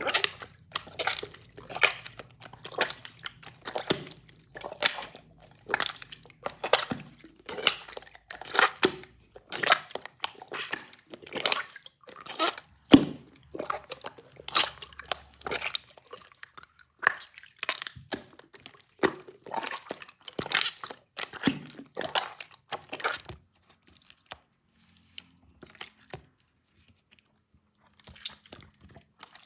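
Repeated crisp crunching and crackling, one or two strokes a second, that stops about 24 seconds in. A few faint clicks follow.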